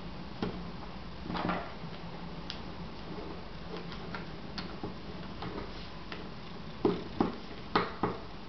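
A sheet of paper being folded and creased by hand on a wooden table: light rustling and scattered small clicks, with four sharper taps in quick succession near the end as the fold is pressed down.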